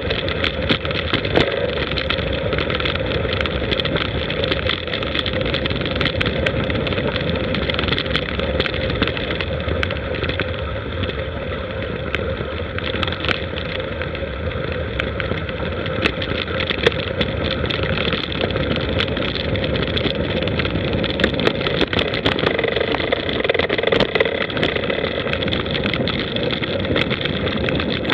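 Riding a bicycle downhill: steady wind rush on the camera's microphone and tyre rumble, with frequent small clicks and rattles from bumps in the track.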